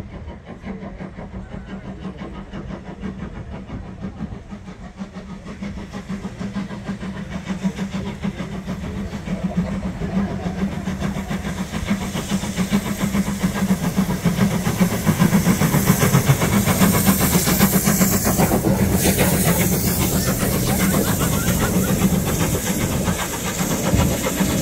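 LMS Jubilee class three-cylinder 4-6-0 steam locomotive 45596 Bahamas working a train, running with hissing steam and growing steadily louder as it approaches. Near the end the engine and its coaches rumble past close by.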